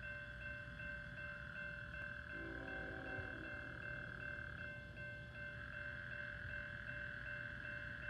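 Electronic railroad crossing bell ringing with a rapid, even ding, over a low steady rumble.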